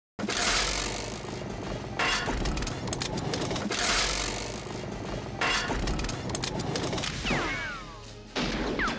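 Action-film soundtrack: a handgun firing and heavy crashes, with loud sudden impacts every second or two over music, and a falling whistle-like tone about seven seconds in.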